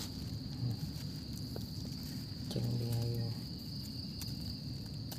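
Steady high-pitched drone of insects, with one short low hum about three seconds in.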